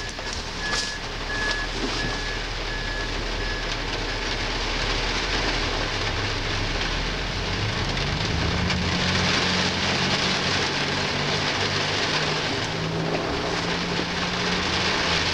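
A vehicle engine, the ambulance van backing up close by, running over a steady hiss. About halfway through its pitch rises and then holds steady. A faint repeated high beep sounds during the first few seconds.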